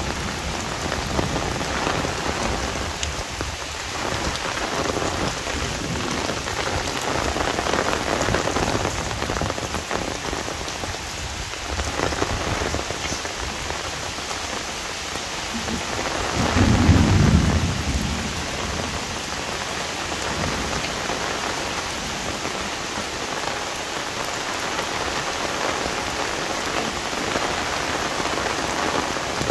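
Heavy monsoon rain falling steadily on an umbrella. A little past halfway a low rumble of thunder comes in, lasting about a second and a half.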